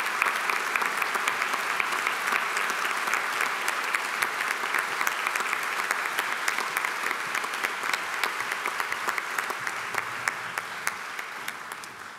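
A large audience applauding steadily, dying away near the end.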